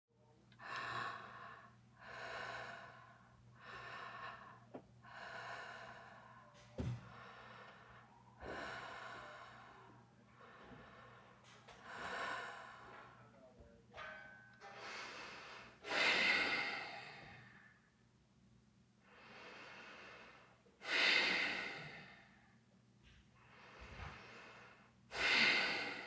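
A woman breathing slowly and heavily, performed as a creepy horror sound effect: drawn-out breaths in and out about every one and a half to two seconds, with three louder, sharper gasping breaths in the second half. A low steady hum lies underneath.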